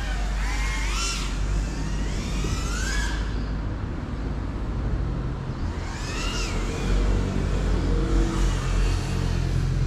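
GEPRC Cinelog35 FPV cinewhoop's motors whining, the pitch swooping up and down with the throttle in the first three seconds and again about six seconds in, over a steady low rumble.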